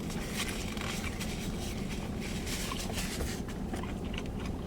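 Faint chewing with small crackly clicks over a steady low background hum.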